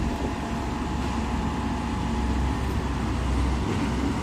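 Steady low engine rumble with no distinct knocks or crashes.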